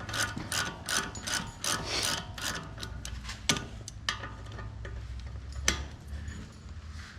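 Hand ratchet with a 13 mm socket clicking on a front brake caliper bolt: quick even strokes of about three clicks a second, then slowing to a few single clicks.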